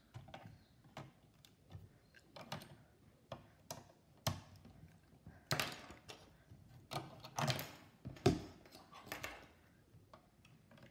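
Plastic Lego bricks and minifigures clicking and knocking as a hand handles a brick build on a wooden table: irregular clicks and short rattles, the loudest about eight seconds in.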